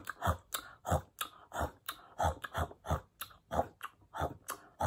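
A woman making crunching, chomping sounds with her mouth in an even rhythm, about three a second, imitating bites into an apple.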